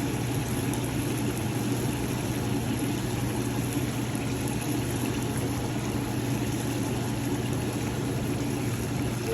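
Pepper steak cooking in a pot on the stove: a steady, even hiss over a constant low hum.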